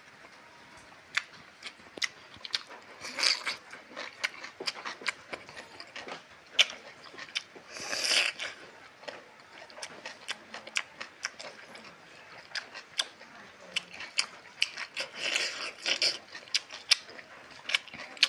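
Eating close to the microphone: chewing and lip smacks as many sharp, irregular clicks, with a few louder crunchy bites of fresh cucumber slices.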